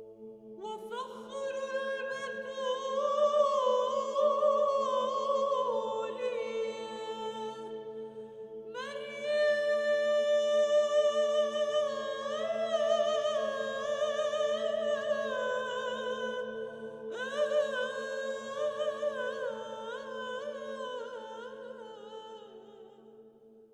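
Background music: a high voice sings three long, slowly bending phrases without words over a held drone, fading out near the end.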